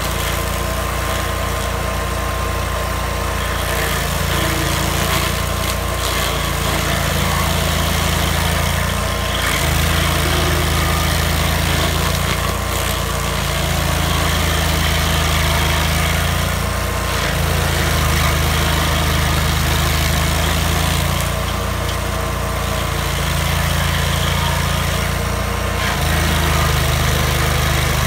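Vermeer stump grinder's engine running at work while its cutter wheel grinds into a stump, the engine note rising and falling every few seconds as the wheel cuts.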